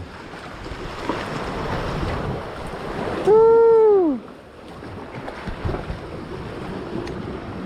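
Sea water washing and slapping, with wind noise on the microphone. About three seconds in, a man gives a single loud whoop.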